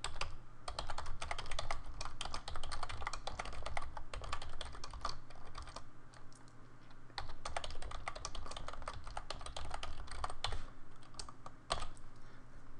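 Typing on a computer keyboard: quick runs of key clicks, with a lull of about a second a little past the middle.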